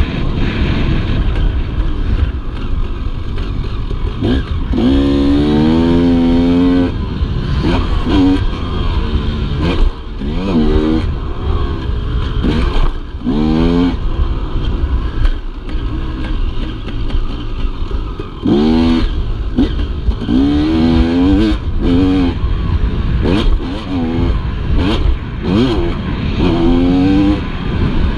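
Dirt bike engine revving hard and dropping back again and again as the rider accelerates and shifts around a motocross track, with a steady rushing noise underneath. The pitch climbs in clear sweeps about every two to three seconds, with a quieter stretch around the middle.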